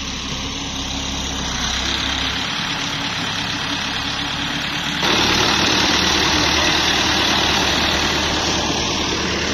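Farm tractor engine running steadily as it drags a land-levelling blade over loose soil, levelling a dirt plot. It gets suddenly louder about halfway through.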